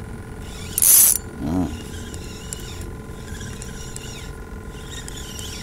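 Spinning fishing reel being cranked, its gears ratcheting steadily as a hooked fish is reeled in after a strike. A brief loud hiss comes about a second in, and a short voiced sound follows just after it.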